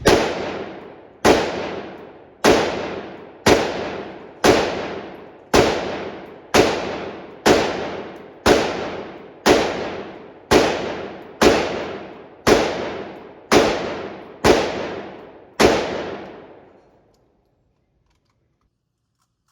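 Sixteen gunshots fired at a steady pace of about one a second, each one sharp and followed by a ringing echo off the walls of an indoor shooting range. The last shot comes about three quarters of the way through and rings out.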